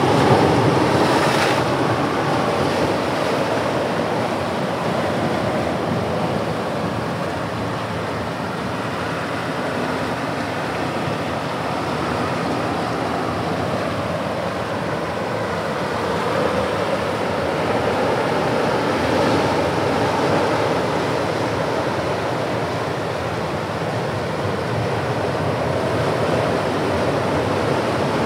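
Ocean surf washing against a rocky shore and its tide pools: a steady rushing of water with no distinct single wave break.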